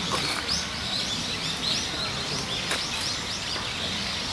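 Many short, high bird chirps, several a second, over a steady hiss of outdoor background noise.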